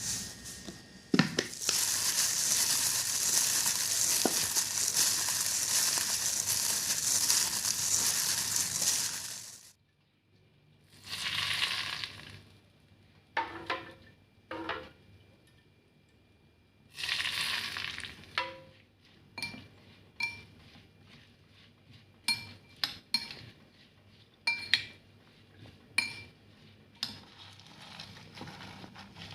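Food sizzling loudly in hot oil in a pan for about eight seconds, then dying down. Shorter bursts of sizzling follow as it is stirred, then a run of sharp clinks and taps of a utensil against the pan.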